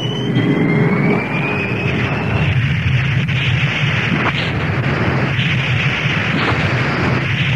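Animated-film jet and explosion sound effects played backwards: a thin rising whine over jet noise for about the first two seconds, then a continuous explosion rumble with sharp cracks about once a second.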